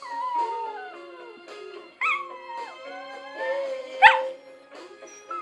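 A Cavalier King Charles Spaniel–Maltese cross dog howling along to a song: two long howls that slide down in pitch, then a short sharp yelp about four seconds in, with the music playing underneath.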